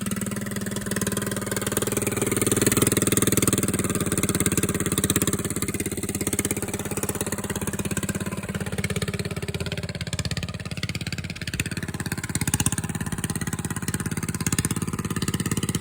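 Engine running through a newly fitted, larger-diameter exhaust pipe, revved a little and easing off, with a steady pulsing exhaust note; the larger pipe makes it quite a bit louder.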